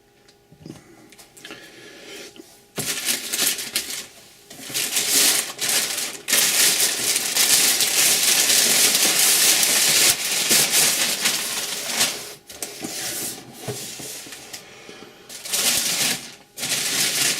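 Packaging crinkling and rustling as a parcel is unwrapped by hand, starting about three seconds in, continuous for several seconds, then in shorter handfuls.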